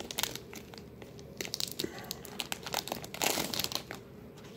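Plastic trading-card sleeves and a rigid card holder being handled, crinkling and clicking in a few short spells, the loudest a little past three seconds in.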